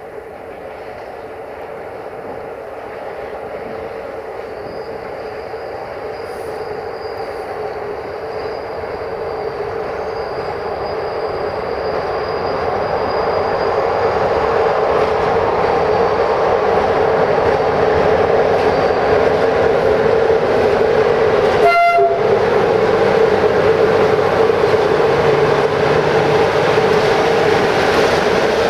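Two Electroputere electric locomotives, CFR classes 43 and 40, hauling a train of tank wagons approach and pass. Their running noise grows steadily louder for about fifteen seconds and then holds. Near the end there is one short horn toot.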